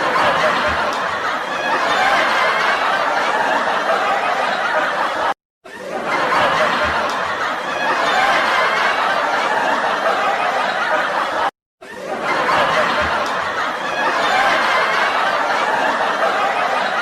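Studio-audience laughter sound effect: a crowd laughing and chuckling together. The same roughly six-second recording plays three times in a loop, each pass swelling in and breaking off with a brief silent gap.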